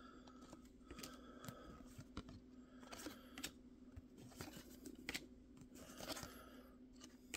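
Faint soft flicks and slides of paper trading cards being moved from front to back of a stack in the hands, over a low steady hum.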